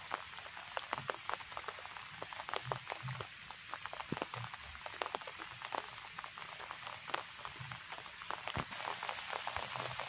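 Rain falling, a steady hiss with many scattered, irregular sharp drop hits close by.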